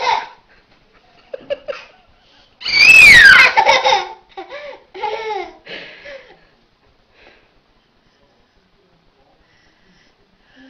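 A toddler laughing: a loud, high-pitched squeal about three seconds in that falls in pitch, followed by a run of short laughs.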